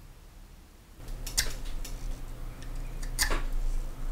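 Pegwood stick being shaved to a point with a blade: two sharp scraping strokes about two seconds apart, with small clicks between. A low steady hum comes in about a second in.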